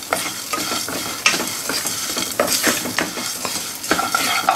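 Wooden spatula stirring and scraping whole spices (cumin, fenugreek, black pepper) around a nonstick wok in repeated strokes as they roast in a little oil, with a light sizzle and crackle underneath.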